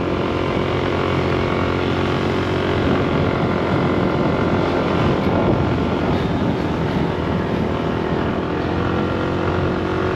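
Small motorbike engine running steadily under load as it carries a rider and passenger up a steep hill, heard close up from the pillion seat, its pitch creeping up near the end.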